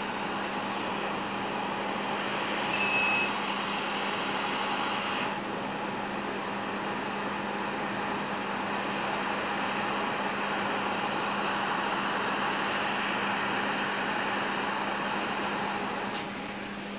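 Hot air rework station blowing a steady stream of hot air to reflow the solder under a MOSFET on a graphics card. A short beep sounds about three seconds in, and the airflow eases off near the end.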